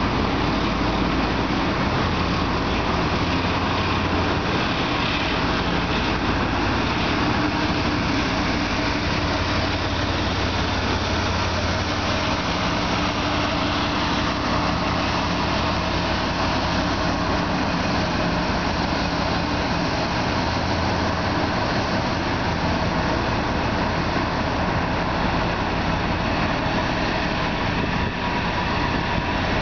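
Loaded coal train rolling past, a steady rumble of hopper cars on the rails, joined by the running diesel engine of the CSX GE ET44AH locomotive pushing as a distributed-power unit at the rear.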